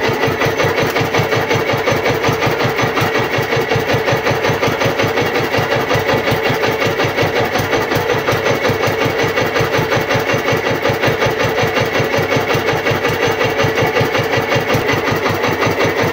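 Small fishing boat's engine running steadily at low speed, with a fast, even chug.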